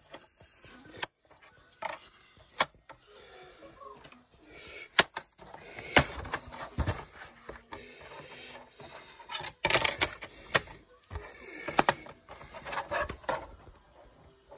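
Plastic handling sounds as a DVD is lifted off a top-loading DVD player's spindle and put back into its case: a string of sharp clicks and clatters with rustling in between.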